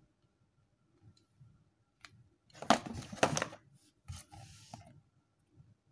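Headphones and their cardboard box being handled: a loud rustling scrape with two sharp clicks about two and a half seconds in, then a softer rustle about a second later.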